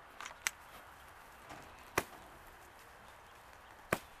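A few sharp clicks or snaps as baling twine on a hay bale is cut and worked loose, two of them loud, about two seconds apart.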